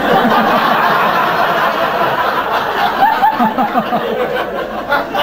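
Live comedy audience laughing together at a punchline, many voices at once, loud throughout.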